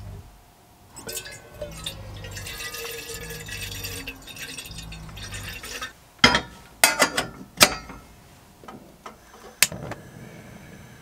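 Tap water running into a stainless steel gooseneck kettle, starting about a second in. Then several sharp clacks and clicks as the kettle goes onto the grate of a gas hob and the burner is lit.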